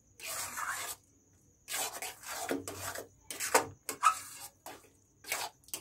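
A metal spatula stirring and scraping a thick cooked semolina mixture around a metal kadai: about seven rasping scrapes, each under a second long, with short pauses between them.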